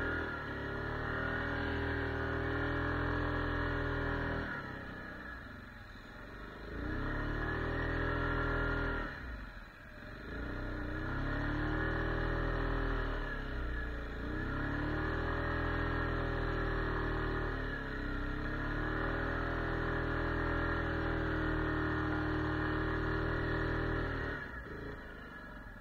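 ATV engine running under throttle through snow. Its pitch sags as the throttle is eased and climbs again several times, most deeply about five and ten seconds in. It drops off near the end.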